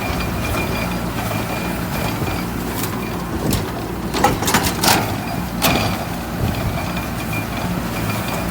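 John Deere 5093E diesel tractor running steadily while driving a small square hay baler, with a short cluster of sharp metallic clacks from the baler about three to six seconds in.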